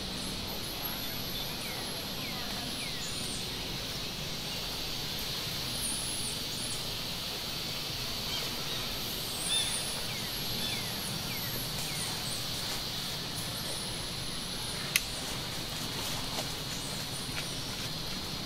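Outdoor ambience: small birds chirping in short, high calls over a steady high-pitched hiss, with one sharp click about fifteen seconds in.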